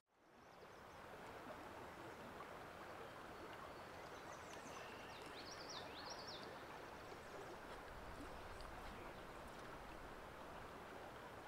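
Faint, steady rush of a flowing stream, fading in at the start, with a bird giving a few short chirps about halfway through.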